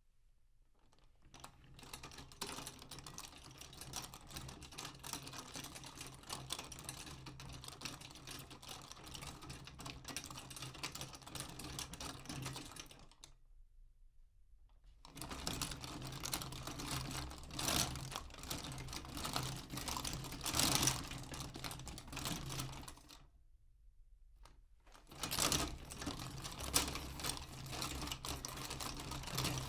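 Utility cart rolling, its wheels and load rattling and clattering with a steady low rumble, heard from a few metres away. It rolls in three stretches with two short stops between them, and a few louder knocks come in the second and third stretches.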